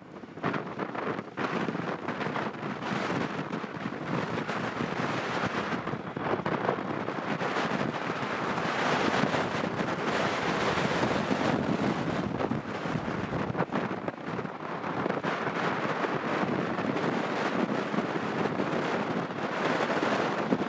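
Boeing 777-300ER's GE90 jet engines during a landing, with strong gusty wind buffeting the microphone. The engine noise grows louder about eight seconds in, as the airliner rolls out along the wet runway throwing up spray.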